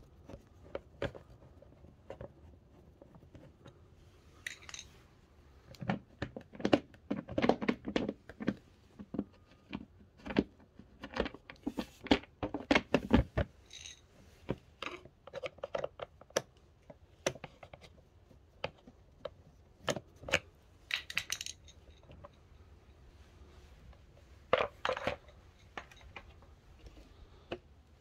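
A screwdriver backs out the screws of a scooter's plastic air filter housing, and the cover is worked loose and lifted off. The sound is irregular clicks, clinks and knocks of small metal screws and hard plastic, coming in clusters with short pauses between them.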